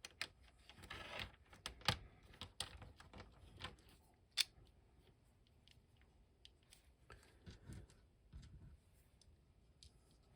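Faint, irregular small plastic clicks and taps as a vintage G.I. Joe action figure's parts are handled and fitted back together, with a short rustle about a second in and two sharper clicks near 2 and 4.5 seconds.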